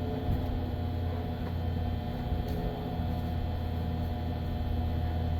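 2010 Suzuki Kizashi's starter motor steadily cranking the 2.4-litre four-cylinder engine, which does not catch: a crank-but-no-start condition.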